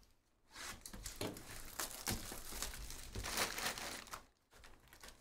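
Plastic shrink wrap crinkling and tearing as it is cut and pulled off a trading-card box, with a few sharp clicks. It starts about half a second in and dies down about four seconds in.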